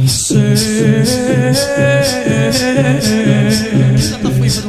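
Latmiya mourning chant: a wordless male vocal line, held and ornamented, over a steady percussion beat of about two strokes a second.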